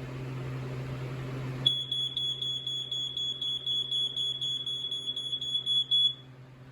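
First Alert 83R smoke alarm sounding on test: its horn gives one continuous high-pitched tone that starts abruptly about two seconds in, holds for about four seconds, then cuts off.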